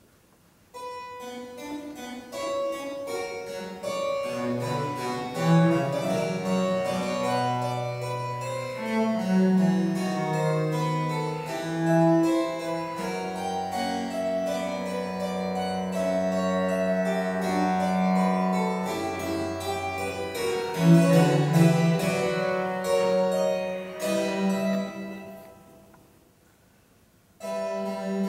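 Harpsichord and cello playing a slow baroque introduction in C minor. The harpsichord's plucked chords sound over the cello's long, bowed bass notes. The music dies away around 25 seconds in, and after a short pause the playing resumes about a second before the end.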